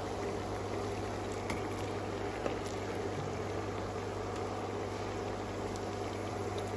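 Oil sizzling and bubbling steadily as spinach-potato patties shallow-fry in a pan, with a couple of light knocks.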